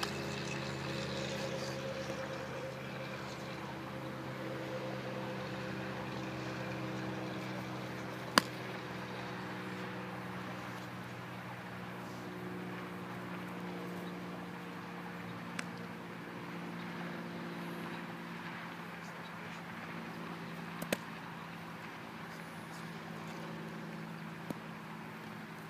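A steady low engine drone, its pitch slowly sinking as it fades, with a few sharp snaps, the loudest about eight seconds in.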